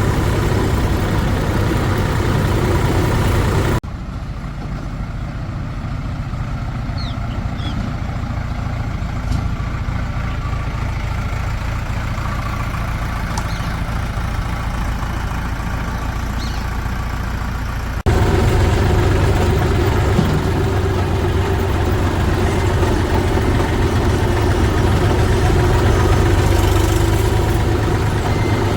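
Diesel engines of heavy farm and earthmoving machinery running steadily. The sound cuts suddenly to a quieter, duller engine about four seconds in and back to a louder one about eighteen seconds in.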